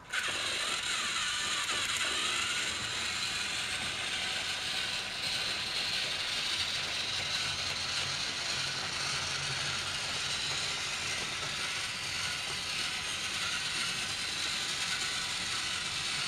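Battery-powered Trackmaster toy train engines running on plastic track: a steady, rattling whir of small electric motors and plastic gears that cuts in suddenly at the start.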